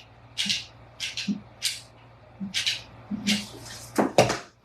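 Rustling and handling of small craft items, a run of short scratchy rustles, followed by two sharp knocks near the end.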